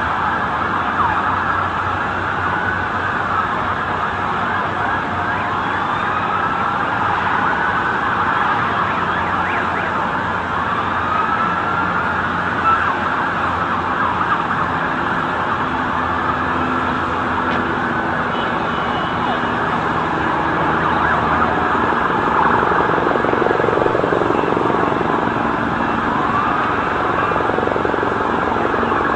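Several emergency vehicle sirens wailing at once, their rising and falling tones overlapping over a steady din of street noise.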